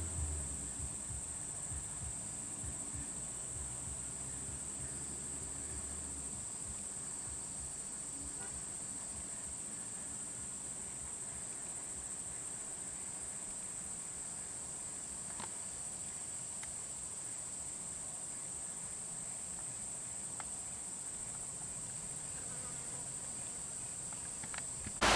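A steady, high-pitched drone of insects from the roadside forest, unchanging throughout. A low rumble sits underneath and stops about six seconds in.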